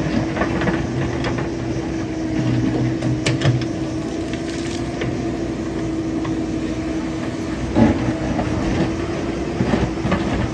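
JCB backhoe loader's diesel engine running as it works its bucket to level a muddy dirt road, with a steady whine throughout and scattered clanks and knocks of the bucket and stones.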